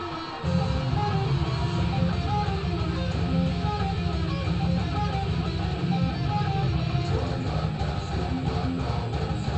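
Electric guitar playing a metal riff along with recorded heavy metal music, a dense low chugging growing much louder about half a second in.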